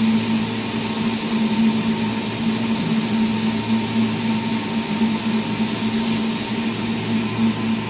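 CNC lathe running with its spindle turning a cylinder tube at about 227 rpm while a boring bar feeds along the bore: a steady machine hum with an even hiss over it.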